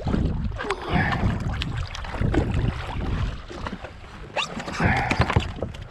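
Wind buffeting the microphone and water slapping against a jet ski's hull, with scattered knocks and two short splashes, one about a second in and one near the end.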